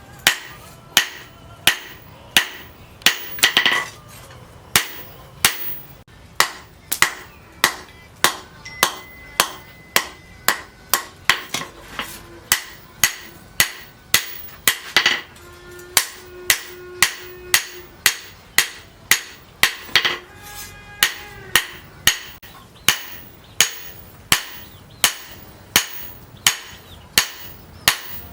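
Hand hammer striking leaf-spring steel on an anvil as the blade is forged, in a steady run of sharp blows about twice a second.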